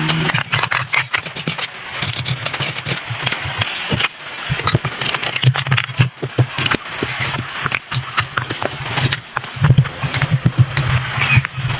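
A low, steady hum like a small motor, coming and going, under many quick knocks and clicks.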